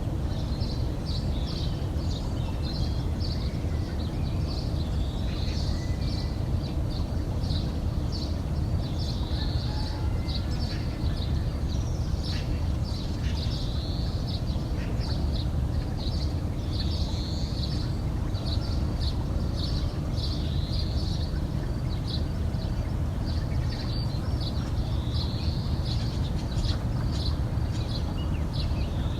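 Small birds chirping over and over in short high notes and little rising calls, over a steady low rumble that runs underneath them.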